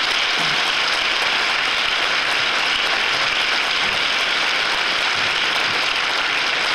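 Audience applauding: many people clapping together in a steady, sustained round.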